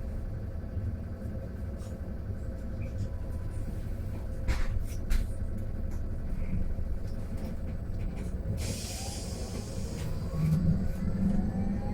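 Mercedes-Benz eCitaro G fully electric articulated bus heard from inside: steady rumble of the ride with a few rattles and clicks. About nine seconds in comes a short hiss of compressed air, then the electric drive's whine climbs steadily in pitch as the bus accelerates.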